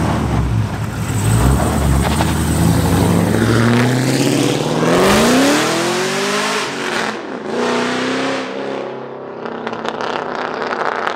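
Cadillac CTS-V coupe's V8 pulling away under hard acceleration. A deep rumble rises steadily in pitch, drops at a gear change about seven seconds in, climbs again and then fades as the car drives off.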